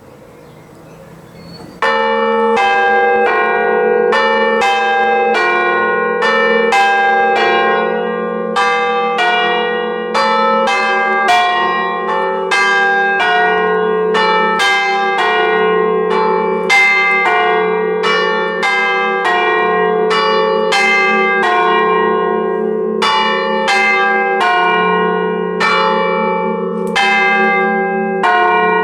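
Church bells struck by the hammers of an Ellacombe chiming apparatus, heard up close inside the belfry. The bells start about two seconds in, then ring out one loud stroke after another at a quick, even pace, each note overlapping the hum of the ones before.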